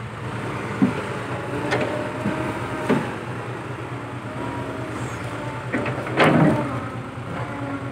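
Diesel engines of heavy earthmoving machinery running steadily, with several short knocks, the loudest about six seconds in.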